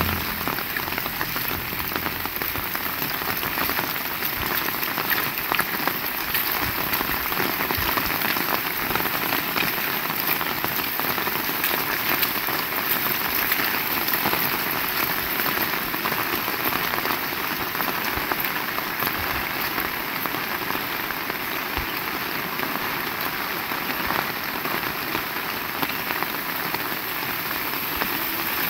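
Heavy rain falling steadily, a dense even hiss of drops striking surfaces, with scattered sharper drip ticks.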